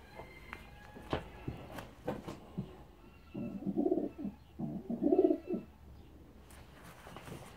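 Racing pigeons cooing in two low bouts of about a second each, about three and a half and five seconds in, with faint clicks between.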